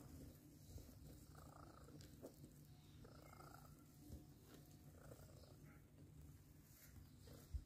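Soft, steady purring from a mother cat nursing her kittens, with a brief thump near the end.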